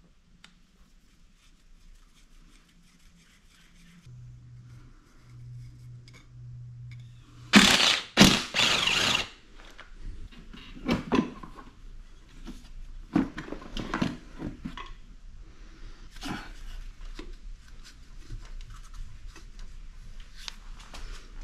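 Hand tools and metal parts being handled while working on a vehicle: scattered clicks, scrapes and clunks, with a low hum for a few seconds and three loud rushes of noise close together about eight seconds in.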